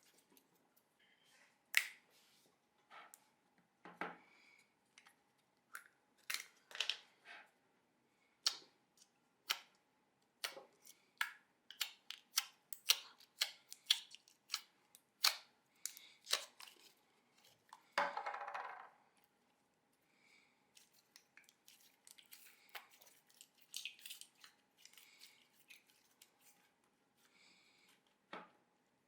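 Hands pressing and stretching slime, making many irregular sticky pops and clicks, with one longer squelch a little past the middle.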